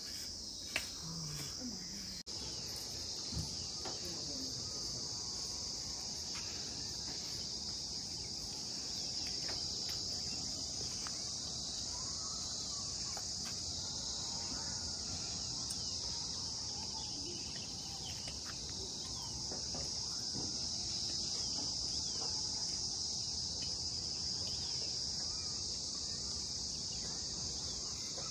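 A chorus of insects chirring: a steady, unbroken high-pitched drone that holds without pause.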